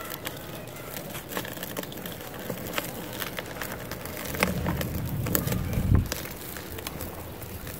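Dry cement lump crumbling in bare hands: a run of sharp, crunchy crackles as it breaks apart. Between about four and six seconds in it grows louder and deeper as the hands crush the pieces to powder.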